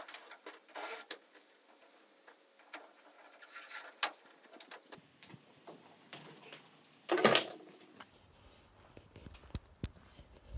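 Hand-tool work on a microlight's metal frame: scattered clicks and short scrapes, with one louder rasping burst just after seven seconds in, as a polycarbonate windscreen is being fastened in place.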